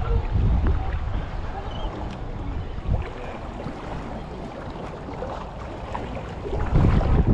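Wind rumbling on the microphone over shallow seawater sloshing as a person wades among rocks, with a louder rumble near the end.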